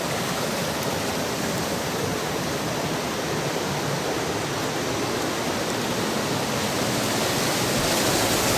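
Panimur waterfall's rushing water, a steady, even rush of noise that grows slightly louder near the end.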